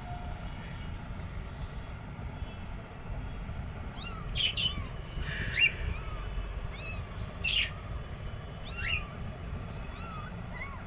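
Newborn kittens mewing: a run of short, high-pitched cries, each sliding up or down in pitch, starting about four seconds in and coming several times a second, with a brief rustle among them, over a steady low hum.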